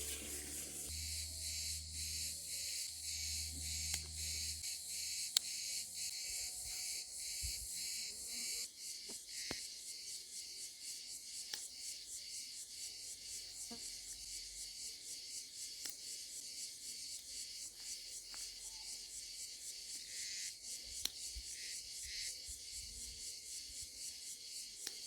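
A chorus of insects chirping in a steady, rapid pulsing high buzz, with a few sharp clicks scattered through it.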